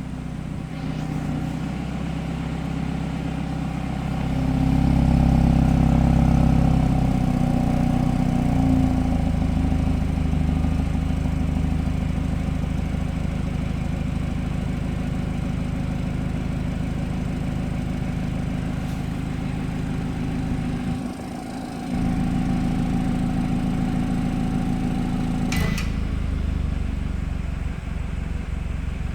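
BMW F30 engine idling just after a start, a steady drone that swells for a few seconds about four seconds in. About 21 s in it dips briefly and comes back with a changed hum. Near 26 s a click sounds and a steady whine drops out: the weird noise the owner hears 20 to 30 seconds after startup.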